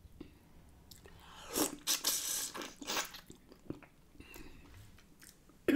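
Close-up eating sounds of someone chewing and biting into shell-on shrimp in butter sauce: wet, crackly mouth noises, clustered about one and a half to three seconds in.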